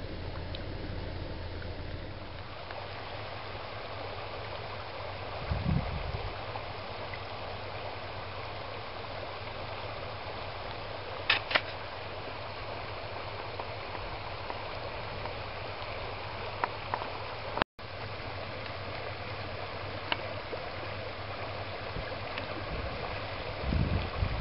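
A shallow river rushing over rocks in a steady wash of water noise. A low rumble drops away about two seconds in. There is a low thump about six seconds in and more low thumps near the end.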